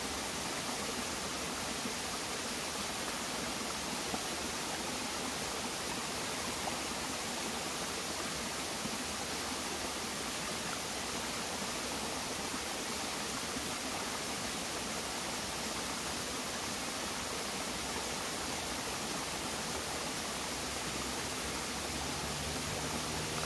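A shallow rocky forest stream running over stones: a steady, even rush of water.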